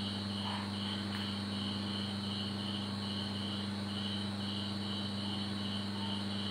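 Rhythmic high-pitched chirping, like an insect, pulsing evenly about three times a second, over a steady low hum.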